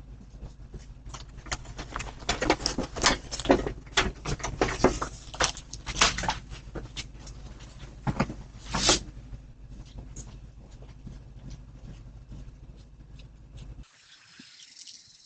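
Irregular knocks, taps and clicks over a steady low hum from a doorbell camera's microphone, busiest in the middle with a longer scraping burst; the hum cuts off abruptly near the end.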